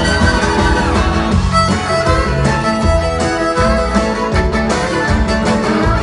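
Live band playing an instrumental passage: a fiddle carries the melody over electric bass guitar and a steady beat.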